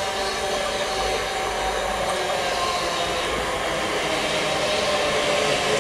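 Electric multiple-unit passenger train approaching on the near line: steady running noise with a faint whine, growing a little louder as it nears.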